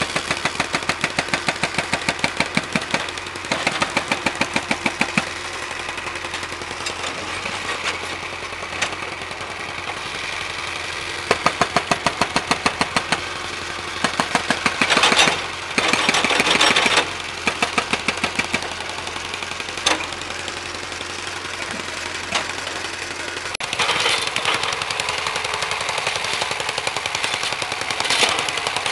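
Hydraulic breaker on a backhoe pounding concrete in rapid blows over the running engine, with louder bursts of hammering in the middle and near the end.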